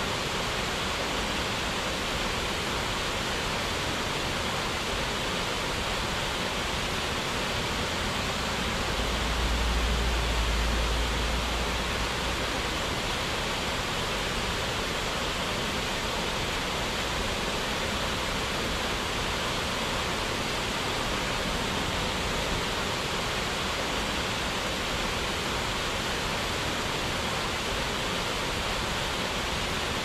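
Steady, even rush of falling water, like a waterfall. A low rumble swells briefly about nine seconds in and fades away by about twelve seconds.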